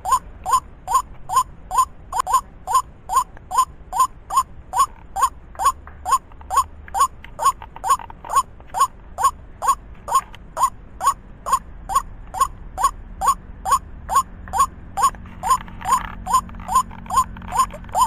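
White-breasted waterhen calling: one short, croaking note repeated at a very even pace, about two and a half times a second.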